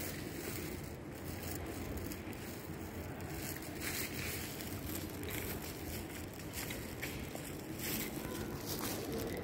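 Steady low rumble and hiss of a quiet airport terminal's ambience, with scattered light rustles and knocks from a handheld phone being carried while walking.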